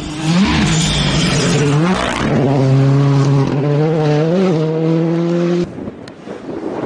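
Rally car engine running at high revs, mostly steady with a few quick rises and dips in pitch, then cutting off suddenly about five and a half seconds in.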